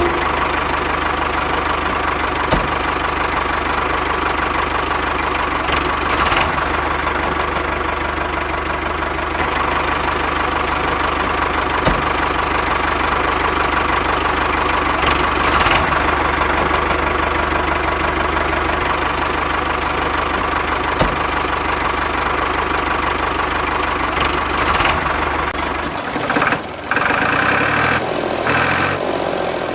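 An engine running steadily at idle with a knocking chug, then changing and dropping away near the end.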